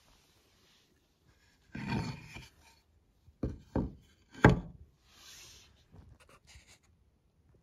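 A thin wooden sign board handled on dusty wooden floorboards: a scrape about two seconds in as it is picked up, then three sharp wooden knocks as it is flipped over and set down, the last the loudest, followed by a few light taps.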